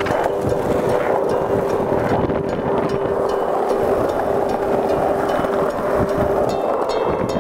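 Skateboard wheels rolling fast over asphalt, a steady roar mixed with wind buffeting the microphone.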